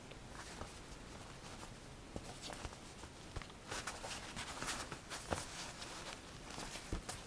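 Handling noise: soft scattered clicks and rustles as a tablet is fitted into and moved about in its case, busier from about halfway through.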